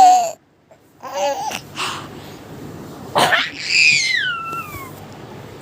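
A baby's high-pitched babbling in short bursts, then a long squeal that falls in pitch about four seconds in.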